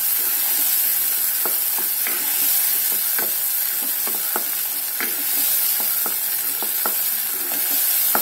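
Onion-tomato masala paste sizzling in hot oil in a non-stick kadhai while it is stirred: a steady frying hiss with scattered short clicks. The masala is being fried (bhuna) until the oil separates from it.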